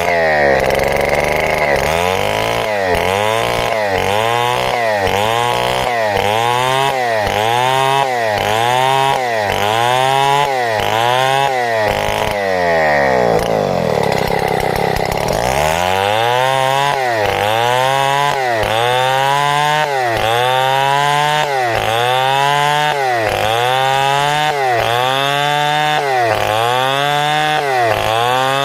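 Two-stroke chainsaw cutting timber into boards. The engine speed rises and falls in an even rhythm about once a second, and around halfway through it drops lower for a couple of seconds before the rhythm picks up again.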